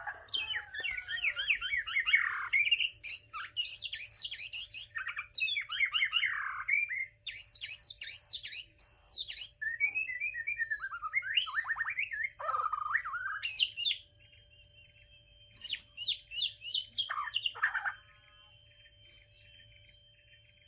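White-rumped shama (murai batu) singing a long, varied song of rapid whistled and chattering phrases, with a short break about 14 seconds in, and falling silent about 18 seconds in.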